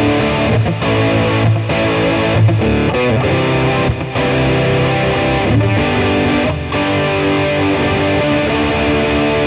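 Heavily overdriven electric guitar, a Scarmy Guitars Gauntlet through an OCD germanium clone pedal set to high-pass with the distortion fully up and the tone at 3 o'clock, played into a Roland Blues Cube Artist amp. It plays picked chords and riffs with a thick, saturated drive, then lets a chord ring on with long sustain for the last couple of seconds.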